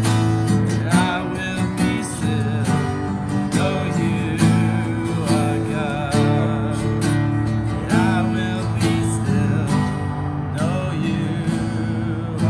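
Acoustic guitar strummed steadily, playing a worship song.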